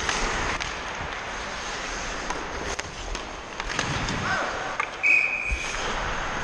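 Ice hockey skates scraping across the ice, with scattered stick clicks on the puck. A sharp knock comes about five seconds in, then a short high-pitched tone.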